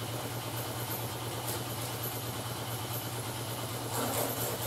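Air compressor running: a steady low motor hum with an even hiss over it, unchanging throughout.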